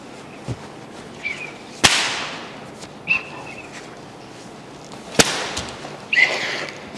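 Two sharp, whip-like cracks about three seconds apart, each trailing off briefly, with a few short, high squeaks in between.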